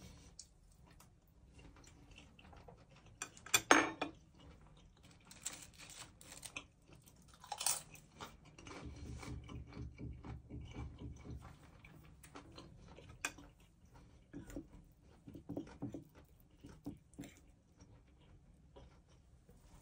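Close-up eating sounds: a fork and knife tapping and scraping on a ceramic plate, with chewing in between. A few sharp clicks stand out, the loudest about four seconds in.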